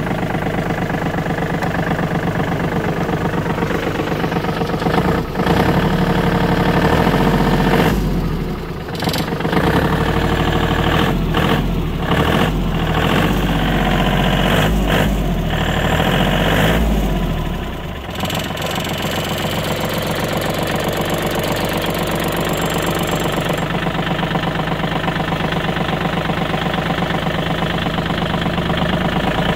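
Kubota L1-series tractor's diesel engine idling steadily just after a cold morning start, its low rumble uneven for a while in the middle before it settles.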